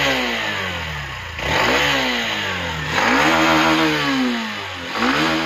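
Hero Xtreme 160R motorcycle's single-cylinder engine being revved with the throttle in short repeated blips: the pitch climbs and falls back about four times, with the last rev starting near the end.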